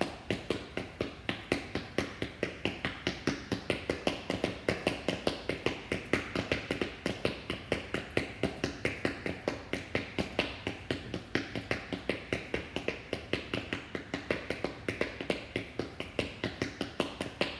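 Shoes tapping on a hard floor in a steady quick rhythm, about four taps a second, as feet alternately lift and land during jogging in place while seated.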